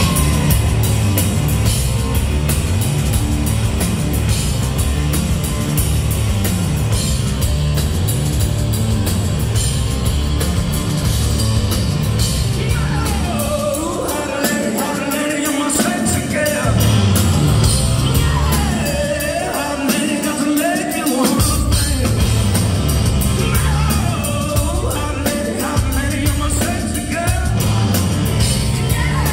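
Live rock band playing loud, starting with an instrumental groove of drums, bass and electric guitar. About halfway through, a male singer comes in, and the low end drops out briefly under some of his lines.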